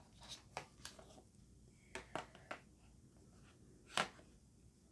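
Faint handling noises of eyeshadow palettes: a few short clicks and taps, with the loudest tap about four seconds in.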